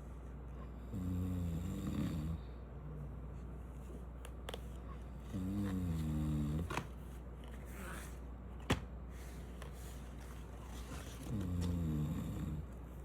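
A man snoring in his sleep: three low, drawn-out snores about five seconds apart, with a single sharp click between the second and third.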